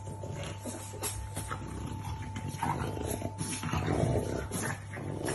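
French bulldogs play-fighting, giving rough, irregular growls, loudest about four seconds in, over a steady low hum.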